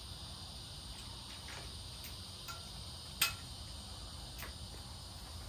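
Crickets chirping steadily, with a sharp metallic click a little past three seconds in and a few softer clicks as the Dahon Vybe D7 folding bike's frame is swung shut at its hinge.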